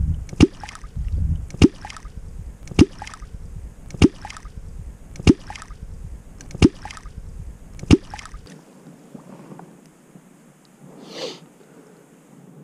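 Catfish clonk (Zeck L-Clonk) struck on the water surface seven times, about once every 1.2 seconds, each stroke a sharp deep pop: the rhythmic call used to draw wels catfish up to a bait.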